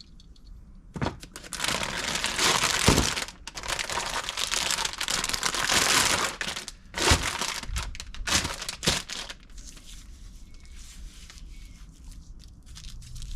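Plastic wrapping crinkling and rustling while a coil of electrical cable is handled, with several sharp knocks; the handling is loudest in the first half and quieter near the end.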